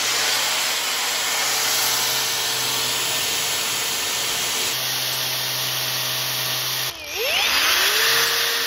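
Cordless angle grinder fitted with a universal cutter head running at speed, a steady motor whine under a dense hiss. About seven seconds in it briefly drops off, then spins back up with a rising whine.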